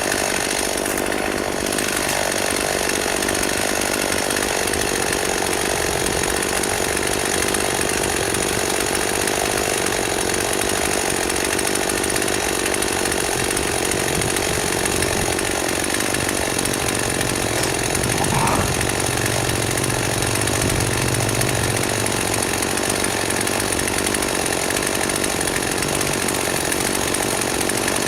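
Chainsaw running steadily without letting up, cutting juniper wood.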